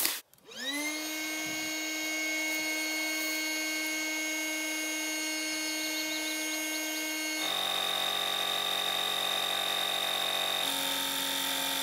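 Marlin GP80D battery-powered electric boat pump starting up and inflating a deflated PVC inflatable boat. It winds up within about a second to a steady electric whine, then about seven seconds in its note drops to a lower, fuller hum, and it shifts again near the end.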